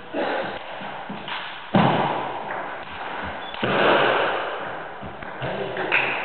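Table tennis ball being struck by paddles and bouncing on the table during a rally, sharp knocks that echo around a large hall; the loudest comes about two seconds in and another nearly two seconds later.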